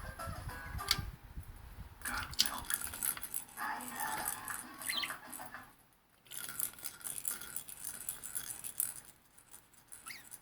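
Small toy balls rattling, jingling and clicking as a budgie plays with them, in irregular bursts with a short pause about six seconds in.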